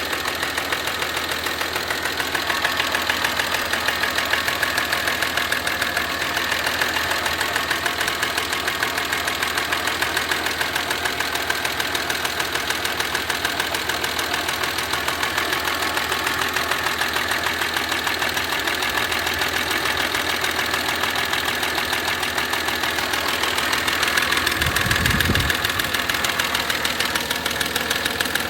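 Audi A4 V6 30v engine running with a rapid, regular knocking that follows engine speed. The uploader puts it down to a faulty cam chain tensioner. A brief low rumble comes in near the end.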